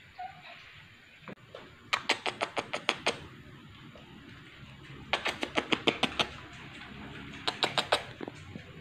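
A person kissing a cat's head over and over: three quick runs of sharp lip-smacking kisses, about nine a second, the last run shorter.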